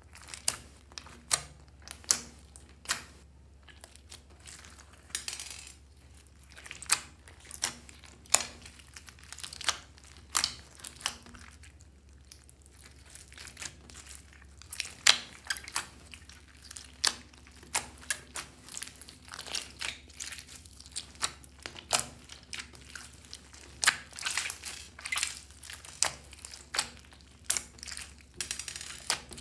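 Clear glitter slime mixed with clay and beads being kneaded and squeezed by hand, making irregular sticky pops and crackling clicks.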